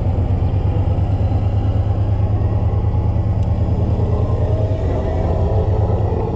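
Off-road car's engine running steadily under load as it wades through deep marsh water, a continuous low rumble with water sloshing around the body.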